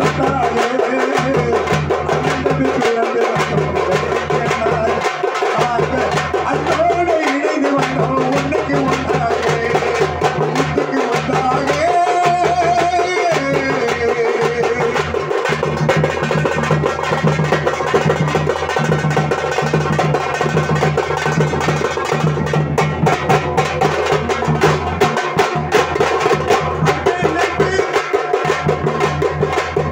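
Tamil thappu (parai) frame drums struck with sticks in a loud, driving rhythm, with a large double-headed barrel drum beating along.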